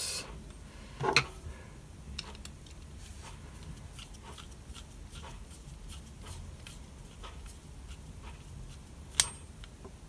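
Small metal clicks and light taps from a Gomexus power knob being handled on a Shimano spinning reel's handle arm while its retaining screw is turned with a screwdriver, as thin shim washers are test-fitted to take up play in the knob. A sharper click comes about a second in and another near the end.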